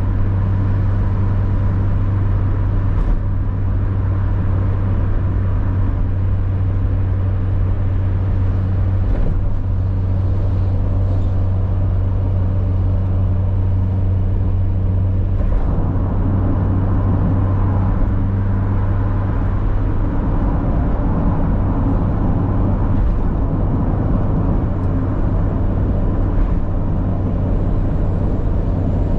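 Mazda MX-5 Miata (NA8C, 1.8-litre four-cylinder) cruising on an expressway: a steady low engine drone over tyre and road noise. About halfway through, the engine note shifts and the road noise gets louder.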